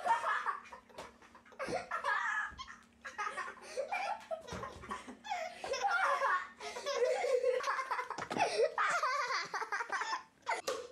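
A baby laughing hard in repeated bouts of giggles and belly laughs, with short breaths between them.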